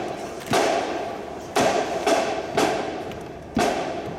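Marching band drums beating a slow cadence: a hit about once a second with an occasional extra hit in between, each ringing out with a long echo.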